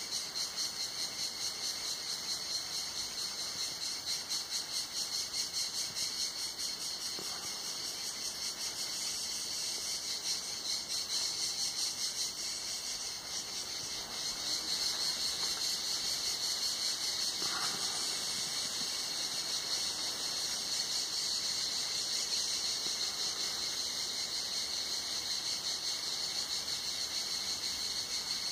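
A chorus of cicadas singing: a continuous high buzz with a rapid, even pulsing flutter, growing slightly louder about halfway through.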